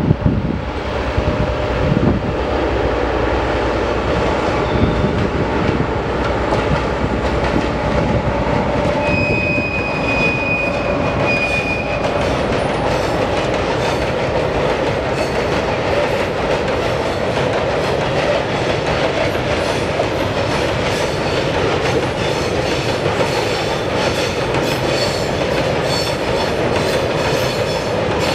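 A freight train passes: first the ZSSK class 731 diesel locomotive's engine, then a long string of open freight wagons rolling by with steady rail noise and the clickety-clack of wheels over rail joints. A high steady tone sounds for a few seconds about nine seconds in.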